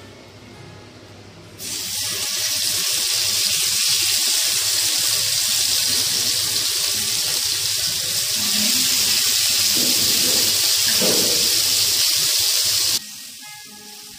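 Marinated chicken pieces sizzling loudly in hot oil in a frying pan as they are laid in with tongs. The sizzle starts suddenly about a second and a half in and cuts off abruptly near the end.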